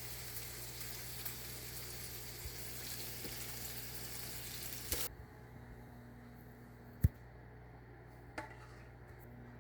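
A steady sizzling hiss, typical of oil frying in a hot pan, that cuts off abruptly about five seconds in. Afterwards it is quieter, with two short clicks.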